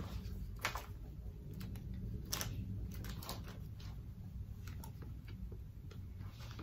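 Scattered light clicks and knocks from handling a Lancer Tactical M4 SD airsoft rifle while trying to pry open its stiff battery compartment, irregular and spaced about half a second to a second apart, over a low steady hum.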